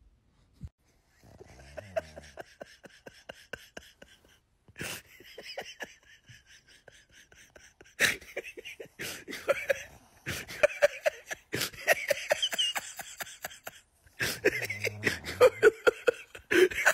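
A person stifling laughter with squeaky snickers and gasps, over runs of quick, light wet taps of fingers on a sleeping pug's tongue.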